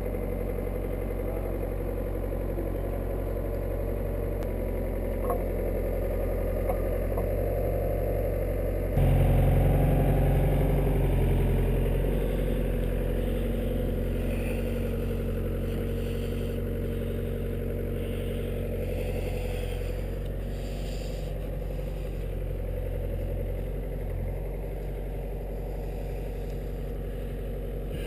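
Excavator's diesel engine running steadily with some light clatter. About nine seconds in it suddenly gets louder, then eases back down over the following several seconds.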